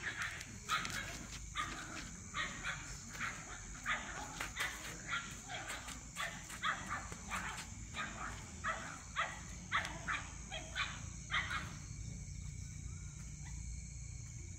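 Repeated short animal calls, about two a second, that stop about eleven seconds in.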